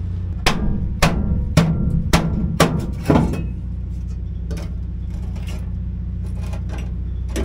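Six mallet blows on a sheet-metal floor-pan patch, about two a second, beating the steel to match the bend of the truck's floor, then they stop. A steady low hum runs underneath.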